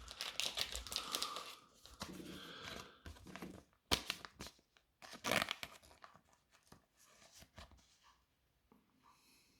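Crinkling and rustling of plastic wrapping and Pokémon trading cards being handled, with two sharper snaps about four and five seconds in, then only faint handling.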